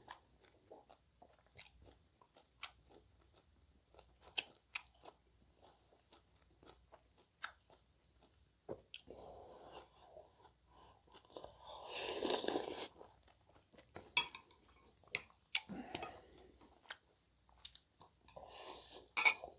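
A person chewing and crunching food close to the microphone, with scattered sharp clicks and a few louder noisy bursts, the loudest about twelve seconds in and another near the end.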